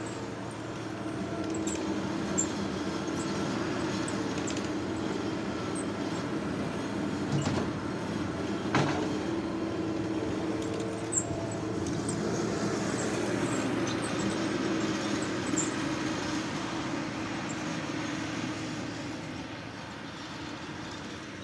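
Skid steer loader running steadily as it moves dirt, with a few brief sharp knocks.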